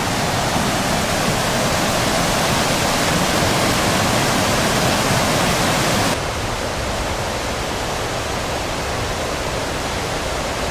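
Fast-flowing rocky Highland burn rushing over white-water rapids, a loud, steady rush of water. About six seconds in it drops suddenly to a quieter, more distant rush.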